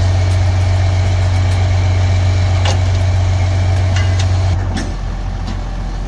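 Diesel engine of a Mack concrete boom pump truck running with a steady low drone, easing down somewhat about four and a half seconds in.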